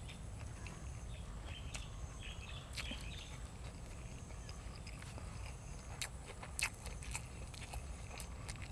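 A person chewing and eating close to the microphone: scattered clicks and smacks of the mouth, a couple of them louder about six and a half seconds in, over a low steady hum.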